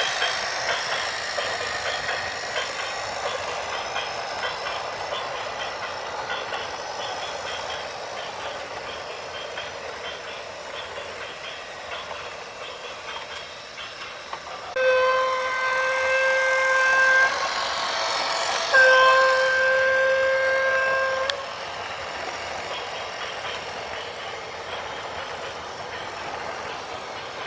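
A rattling vehicle noise fades over several seconds. Then a horn sounds two long steady blasts, each about two and a half seconds, a second and a half apart.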